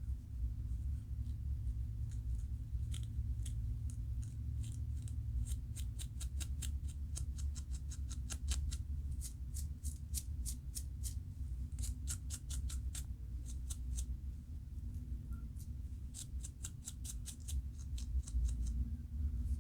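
Scratching at a flaky scalp to lift dandruff: runs of short, sharp scratches, a few a second, with pauses between the runs, over a steady low hum.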